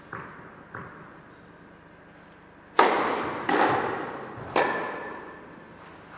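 Tennis ball bounced twice softly on the clay before the serve, then three loud racket strikes roughly a second apart as the rally begins, each ringing out with the echo of the indoor hall.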